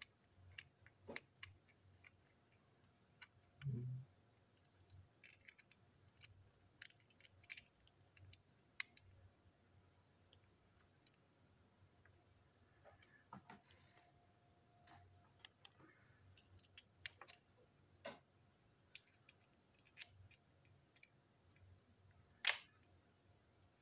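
Faint, scattered clicks and taps of a small screwdriver and plastic parts as the screws of a plastic toy train engine are worked loose, with a soft thump about four seconds in and a sharper click near the end.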